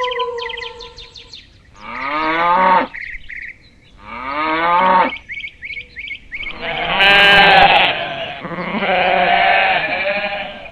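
Sheep bleating: two separate bleats of about a second each, then longer, overlapping bleats from several animals through the second half.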